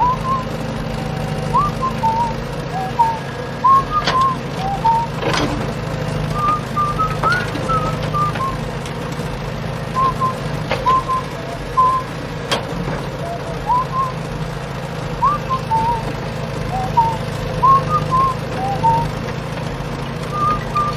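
Background music of a bright whistled tune, quick short notes in a looping phrase over a steady low hum, with a few sharp clicks.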